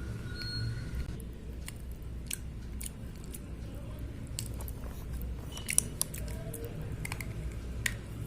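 Slate pencils being bitten and chewed: scattered sharp crunching snaps over a low steady hum, the loudest about six seconds in and another near the end.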